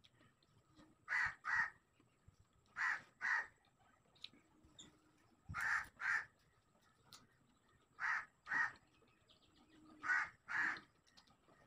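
A crow cawing in pairs, two quick caws at a time, a pair every two to three seconds, five pairs in all.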